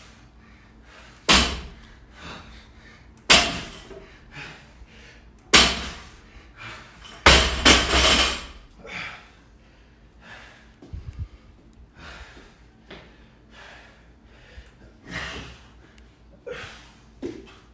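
Barbell loaded with rubber bumper plates set down hard on a rubber floor mat at the bottom of each deadlift: four heavy thuds about two seconds apart, the last followed by a quick second hit as the bar is dropped and bounces. Softer thumps follow as the lifter moves into burpees.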